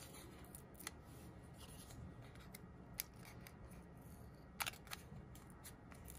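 Faint paper handling: fingers peeling the backing liners off foam adhesive dimensionals on a small cardstock piece, with a few small sharp clicks about one, three and four and a half seconds in.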